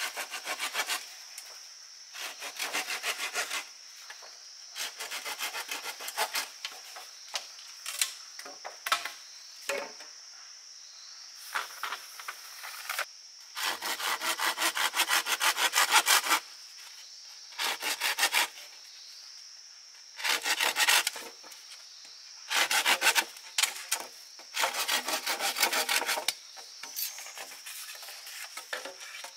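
A blade sawing and scraping into a green bamboo pole in quick, even back-and-forth strokes, in bursts of one to three seconds with short pauses between.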